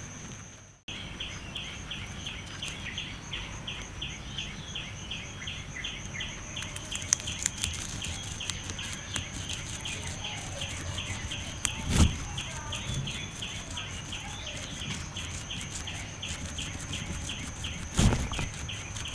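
A guinea pig chewing fresh green grass, a dense crackly crunching that grows busier about a third of the way in, over an outdoor background of steady high-pitched chirping pulsing about three times a second. Two dull thumps stand out, one about two thirds of the way in and one near the end.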